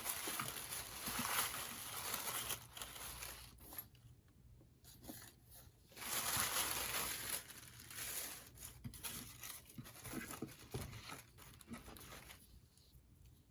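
Paper and book pages rustling and rubbing as they are handled, in spells of a few seconds with quieter gaps and small clicks between.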